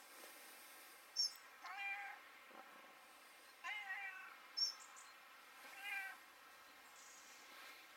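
Ginger-and-white cat meowing three times, each meow short and pitched. Two brief high-pitched chirps, about a second in and again midway, are the loudest sounds.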